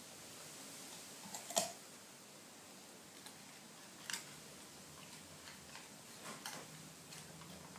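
A dog chewing a raw carrot: a few sharp, crisp crunches with pauses between them, the loudest about one and a half seconds in, others about four, six and a half and seven seconds in.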